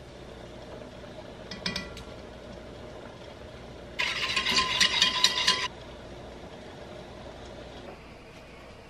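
Rapid metallic scraping and clattering of a utensil stirred briskly through milk in a metal saucepan, starting about four seconds in and stopping abruptly under two seconds later. A few short clicks come a little before the two-second mark.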